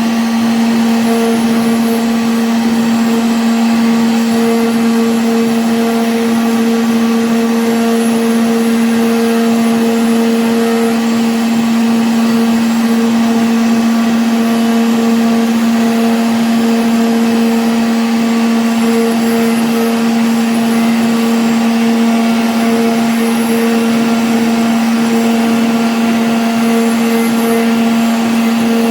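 CNC router spindle running and cutting MDF, a steady motor whine with a hissing cutting noise that holds unchanged throughout.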